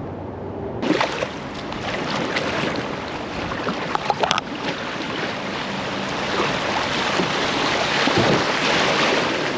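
Creek water rushing, a steady loud hiss that starts abruptly about a second in, with a few short knocks and a brief cluster of clicks about four seconds in.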